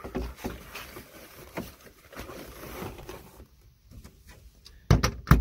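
Handling noise from a camper van's wooden cabinet: a thump, then rustling, then two loud knocks about half a second apart near the end, as the cabinet and its clip-in wooden bar are handled.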